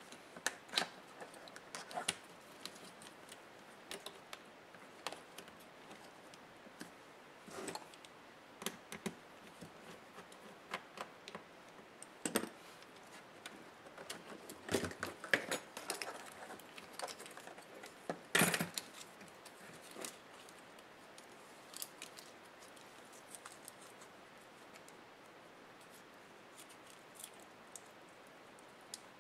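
Irregular small clicks and taps of plastic and metal laptop parts and hand tools being handled during a laptop teardown. There is a busier run of taps about halfway through, and the loudest knock comes shortly after.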